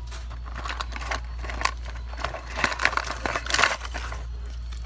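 Rustling and crinkling of paper with sharp clicks from small objects being handled, thickest from about two and a half to nearly four seconds in, over a steady low hum.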